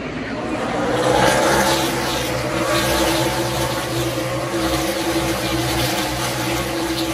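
A pack of NASCAR Cup Series stock cars with pushrod V8 engines running past in a tight line. The engine sound swells about a second in and stays loud as the field streams by.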